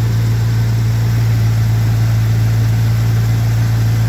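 1985 Chevy C10's carbureted 350 small-block V8 idling steadily with an even low hum and no revving.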